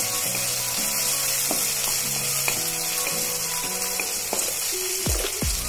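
Chopped green chillies and capsicum sizzling in hot oil in a metal kadai, stirred with a wooden spatula that scrapes and knocks against the pan. There is a low bump near the end.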